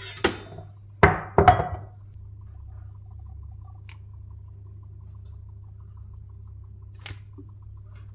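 Two sharp clinks of kitchenware, a milk pitcher and cup, about half a second apart just after a second in, each with a short ring. Afterwards a low steady hum with a faint click near the end.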